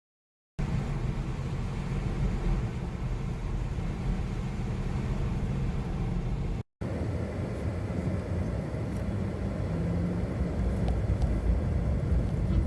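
Steady low hum of a vehicle running, with a few held engine tones under road-like noise, starting just after the beginning and broken by a short gap about six and a half seconds in.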